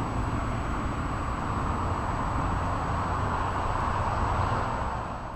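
Steady outdoor background noise, an even rushing wash with a low hum under it and a faint, constant high-pitched whine.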